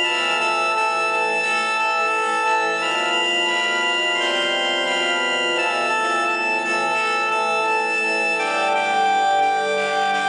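Sustained organ-like chords, held steadily and moving to a new chord about every second and a half, with no coughing heard.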